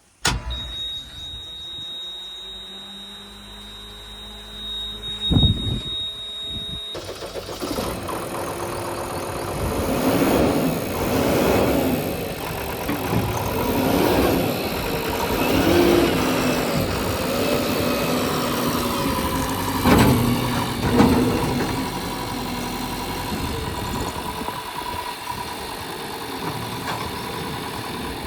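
JCB 3DX backhoe loader's diesel engine running, its note rising and falling repeatedly as the machine works. A steady high whine fills the first several seconds, and the engine sound then comes in abruptly.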